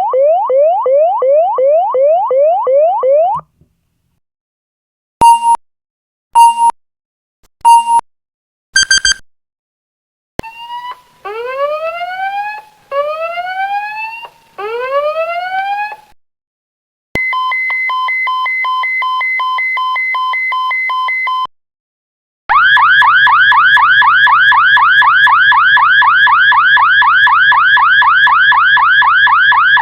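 A run of different electronic alarm and warning sounds, one after another. Fast repeated rising sweeps stop about three seconds in. A few short sharp beeps follow, then three slow rising whoops, then a steady buzzing tone for about four seconds. From about two-thirds of the way in, a loud, fast repeating rising warble runs on.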